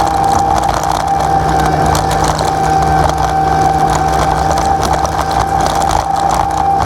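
Mini excavator's diesel engine running steadily, with a steady high whine over the engine hum and scattered light knocks.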